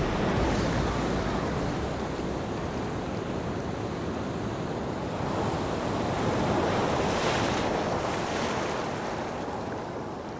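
Sea surf washing in, with wind on the microphone; it swells about halfway through and eases off near the end.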